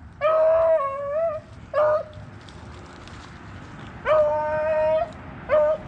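Rabbit-hunting hound giving voice on the trail: two drawn-out bawls of about a second each, each followed by a short bark.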